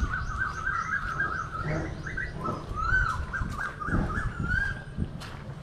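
Birds chirping and twittering, a steady run of quick warbling notes, with sharper high chirps near the end.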